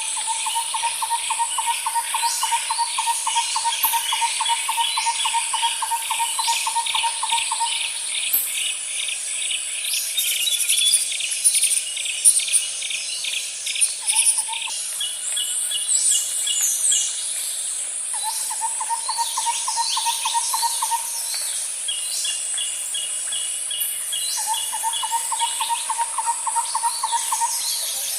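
Birds and insects together: a steady high insect drone runs throughout, with many short high bird chirps and quick sweeping calls over it. A lower, fast even trill sounds at the start and lasts about eight seconds, then returns briefly about halfway through and twice more, for about three seconds each, in the second half.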